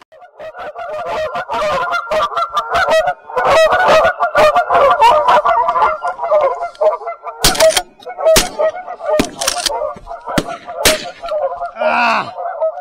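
A flock of geese honking, many calls overlapping continuously. Several sharp clicks or knocks sound through the second half, and one separate call rings out near the end.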